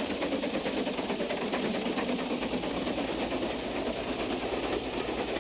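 A train running along the track: a steady rolling rumble with a fast, even pulsing.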